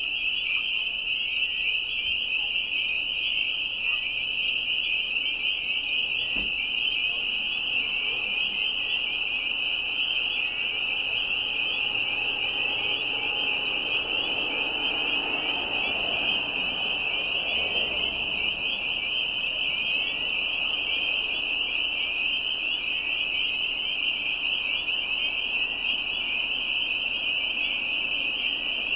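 A dense chorus of spring peepers: many high, piercing peeps overlapping into one continuous shrill wall of sound. A faint lower sound swells and fades around the middle.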